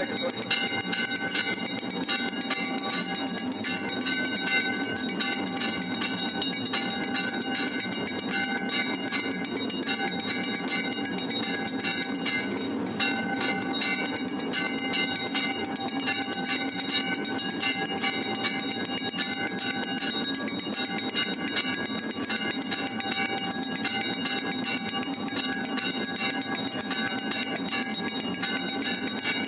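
Many temple bells ringing together without pause for aarti, a loud, steady, continuous clangour of overlapping ringing tones that dips slightly for a moment about halfway through.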